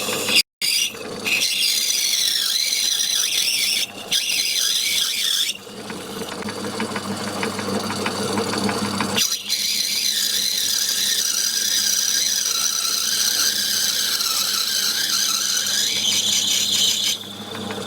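Myford lathe turning a small bicycle spoke nipple blank, with the cutting tool squealing on the work over the steady hum of the lathe. The sound briefly cuts out about half a second in, and the squeal's pitch wavers and changes as each cut goes on.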